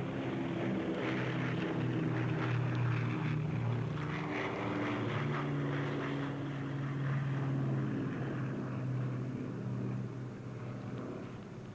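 A steady engine drone with several low tones held at once, easing off near the end. Light rustling and crackles run through the first half.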